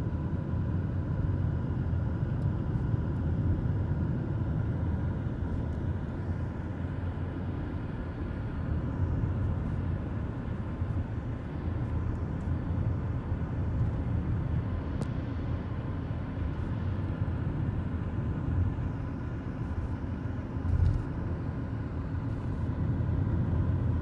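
Car road noise heard from inside the cabin while driving: a steady low engine and tyre rumble, with one louder bump near the end.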